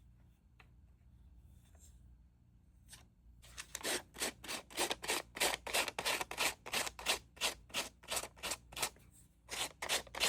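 Sandpaper rubbed in quick back-and-forth strokes along the paper-covered edge of a small wood block, sawing away the excess rice paper to give a worn, rustic edge. The strokes start a few seconds in and run at about three a second, with a brief pause near the end.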